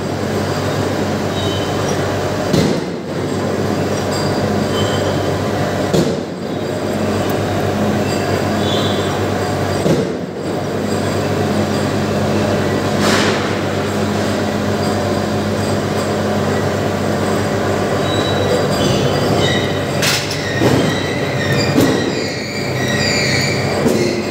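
Forging machine running while it works red-hot steel: a loud, steady machine hum with a metallic clank every few seconds, and thin high-pitched metal-on-metal tones near the end.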